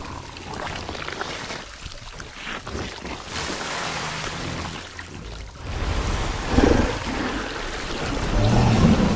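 Action-film sound effects: a rushing, water-like noise with low rumbling, swelling louder about two-thirds of the way in and again near the end.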